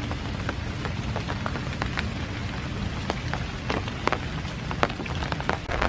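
Steady rain falling, with scattered sharp taps of individual raindrops throughout.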